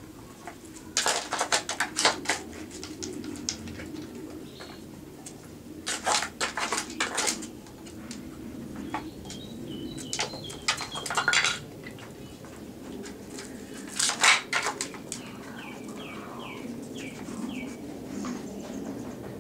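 Wooden dog puzzle board clattering in four bursts of quick knocks as a dog noses and paws its sliding blocks. A pigeon coos throughout, and a small bird chirps a quick run of about six notes near the end.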